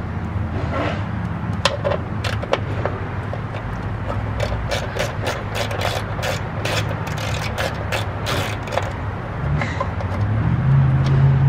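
Hand ratchet clicking as a bolt on the WRX's boost control solenoid bracket is loosened: a few scattered clicks at first, then a quick run of clicks about midway. A vehicle engine hums underneath and grows louder near the end.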